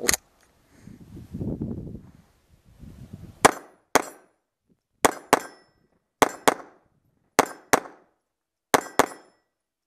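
CZ Shadow 2 9 mm pistol fired single action in quick double taps: ten shots in five pairs, the pairs about a second apart, starting a few seconds in. The trigger is lightened by a fitted 13-pound mainspring.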